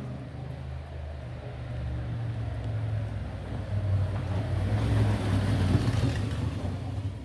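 A motor vehicle's engine running on the street with a steady low hum, growing louder about four to six seconds in as it comes close.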